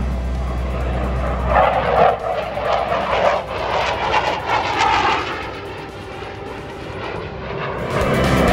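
Jet engine roar of a CF-18 Hornet fighter making a low pass. It swells loud about a second and a half in, eases off past the middle, and builds again near the end.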